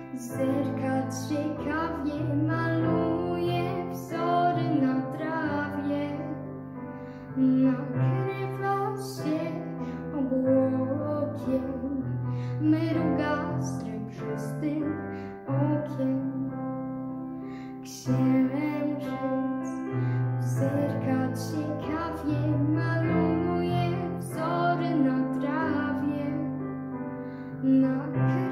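A child singing a Polish children's song in a slow, lullaby-like melody, over a piano or keyboard backing track.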